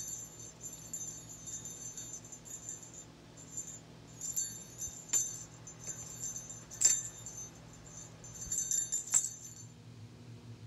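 Small bell on a yarn-hung cat toy jingling in bursts as a cat bats and swats at it, with a few sharp knocks about 5, 7 and 9 seconds in. The jingling stops shortly before the end.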